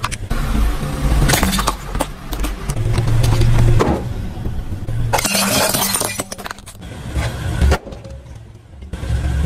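Clear plastic tray and plastic toy figures crackling and snapping as a car tyre rolls over and crushes them, with a low rumble from the car between two bursts of cracking.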